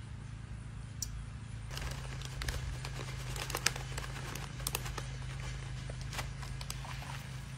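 Plastic bag of shredded cheddar crinkling and crackling as it is handled and tipped into a glass bowl, with a steady low hum underneath.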